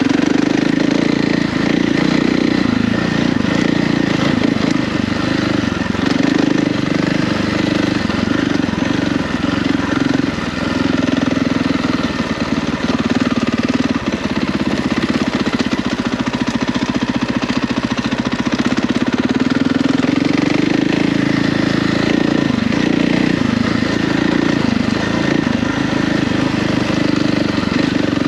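Husqvarna FE450 dirt bike's single-cylinder four-stroke engine pulling the bike along a trail, its engine note sagging and climbing again as the throttle is eased and opened.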